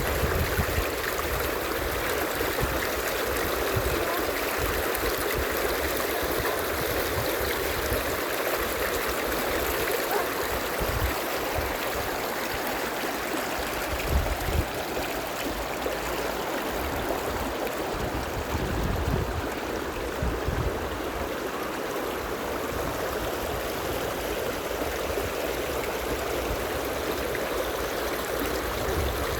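Thermal spring water running steadily in a shallow stream over travertine, with irregular low bumps, the loudest about fourteen seconds in.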